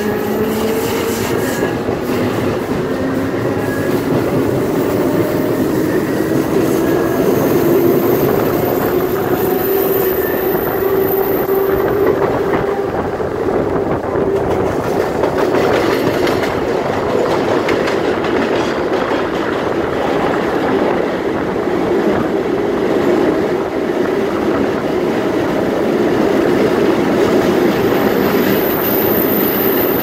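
CBTU Série 900 electric multiple unit running along the line: a steady drone of wheels on rail under a motor whine whose pitch climbs near the start, as the train picks up speed, then holds roughly level.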